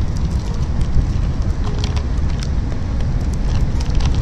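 Wind buffeting the microphone in a steady low rumble, with scattered crinkles of sour-candy wrappers being unwrapped by hand.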